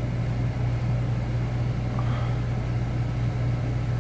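RV rooftop air conditioner running, a steady low hum with air rushing from the vent; this is the rear unit, blowing cooler air.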